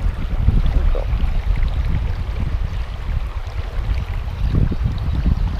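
Wind buffeting the microphone in gusts over the steady rush of a river's current.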